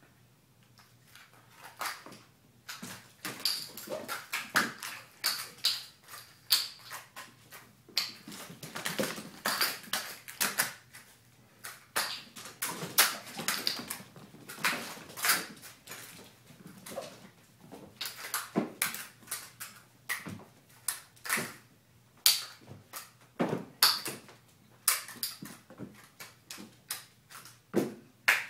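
Kittens' paws scampering, jumping and landing on a hardwood floor: an irregular run of quick taps and thumps.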